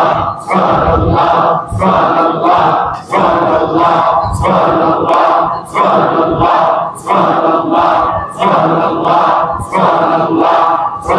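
A group of men chanting Sufi dhikr in unison. A short phrase is repeated about every 1.3 seconds, each with a sharp breathy accent.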